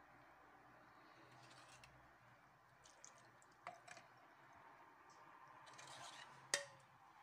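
Metal ladle clinking against the pots while scooping and pouring liquid: a few light clinks a little past halfway, and one sharp, louder clink near the end.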